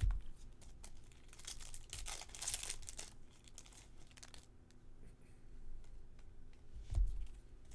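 Baseball card pack wrappers crinkling and tearing as packs are opened, loudest around two to three seconds in, then lighter rustling and a low thump near the end.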